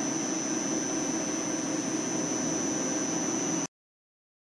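OKK MHA-600 NCTC copy milling machine running, a steady high whine over a lower machine hum, which stops abruptly near the end.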